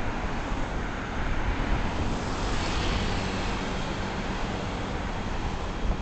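Wind buffeting the microphone and road rumble from a moving vehicle. A motor scooter passes close by about halfway through and pulls ahead, its small engine faintly heard.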